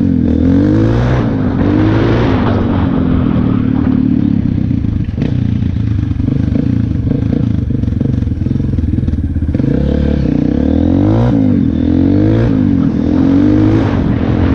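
Honda CRF230F's air-cooled single-cylinder four-stroke engine under way, its pitch climbing and dropping through the gear changes as it pulls off at the start and again about ten seconds in, running steadier in between.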